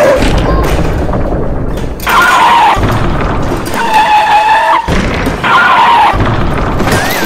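Heavy truck engine rumble with three short horn blasts, about two, four and five and a half seconds in; a wavering whistle-like tone starts near the end.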